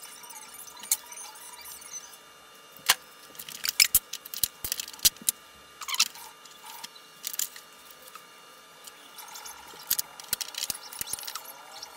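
Irregular clicks, taps and clatter of hard plastic and metal parts and tools being handled as a vacuum cleaner is dismantled, with a faint wavering squeak in the last few seconds.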